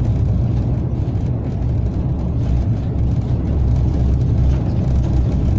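Steady low rumble inside the cab of a Czech class 163 electric locomotive running along the line.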